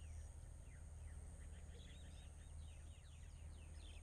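Faint bird chirping: many short, quick notes, each falling in pitch, scattered throughout over a low steady hum.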